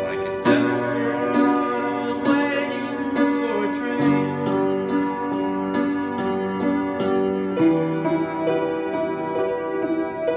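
Solo piano played with both hands: melody over struck chords, with bass notes coming in about four seconds in.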